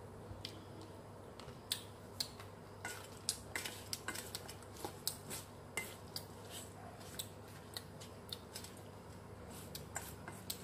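Wooden chopsticks clicking and scraping against a stainless steel bowl as sliced figs and lemongrass are tossed together, in irregular light clicks over a faint low hum.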